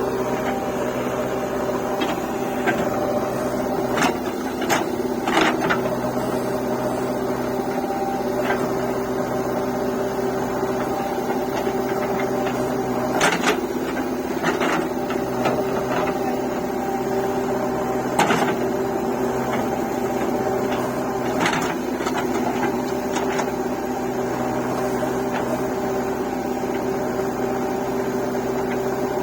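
Heavy diesel engine of earth-moving machinery running steadily at constant speed, with a few short sharp knocks every few seconds.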